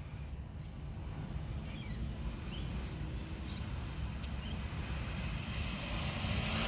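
Steady low outdoor rumble, as of traffic, growing slightly louder, with a few faint high chirps.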